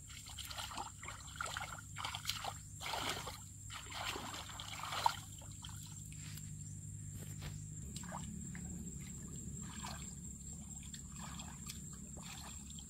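Muddy shallow water sloshing and trickling as a person wades barefoot and gropes in the mud by hand for fish, in irregular swishes with a sharp click about five seconds in. It settles to a quieter, steadier low hum in the second half.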